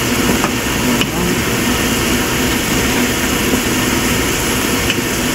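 Pork boiling in vinegar in a nonstick pan, bubbling steadily as the liquid boils down, while a wooden spatula stirs the pieces, with a few light knocks against the pan.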